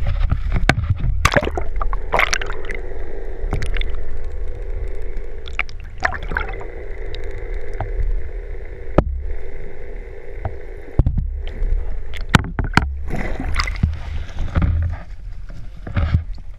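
Water sloshing and gurgling around a small boat, with a constant low rumble and frequent sharp knocks and clunks.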